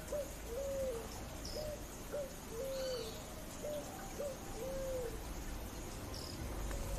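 Picazuro pigeon (asa-branca) singing: a low cooing phrase of two short rising notes followed by a longer drawn-out coo, repeated three times at an even pace.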